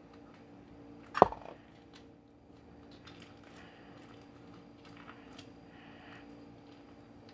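Crunchy slime being handled: faint scattered crackles and clicks, with one loud sharp pop about a second in.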